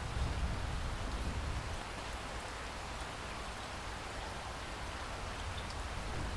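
Steady rain falling on a surface: an even hiss with scattered drop ticks. A low rumble runs underneath for about the first two seconds, then eases off.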